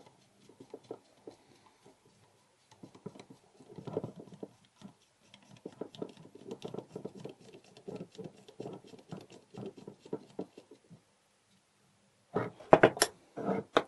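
Metal parts inside an opened Glutz tube-frame lock case being worked by hand with a thin screwdriver: quiet, irregular small clicks and scrapes, then a few louder sharp knocks near the end.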